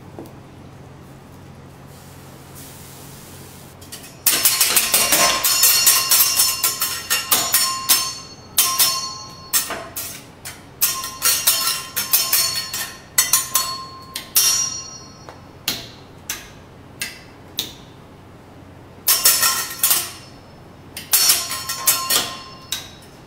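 Steel teppanyaki spatulas clanging and tapping against each other in a spatula-twirling show: fast rhythmic runs of sharp metal clicks with a ringing tone, starting about four seconds in and coming in bursts with short pauses between them.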